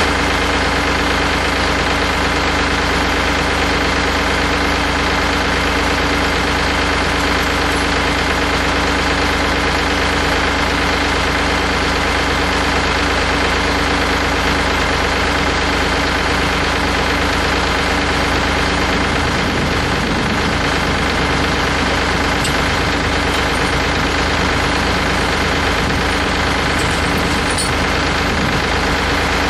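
Tractor engine running steadily while the tractor's bale spear is worked to pick up a chain.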